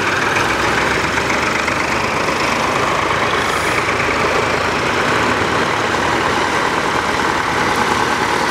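Several vintage farm tractors driving slowly past one after another, their engines running steadily.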